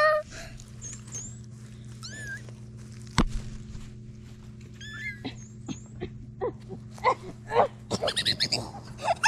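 Very young kittens mewing in short, thin calls, scattered at first and coming more often over the last few seconds. A single sharp tap about three seconds in.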